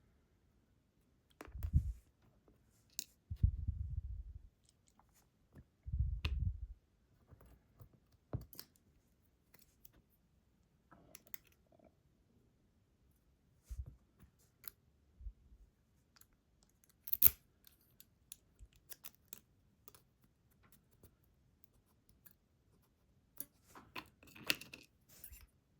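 Scattered small clicks and taps of a picked ASSA Guideline lock and its metal parts being handled as it is taken apart, with three dull handling thumps in the first seven seconds, a sharp click about seventeen seconds in, and a cluster of clicks near the end.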